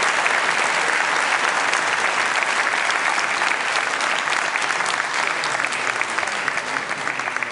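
Audience applauding, dense clapping that slowly dies down near the end.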